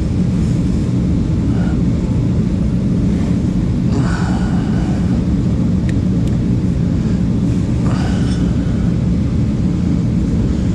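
Loud steady low mechanical drone, with a few faint scrapes and a single sharp click about six seconds in.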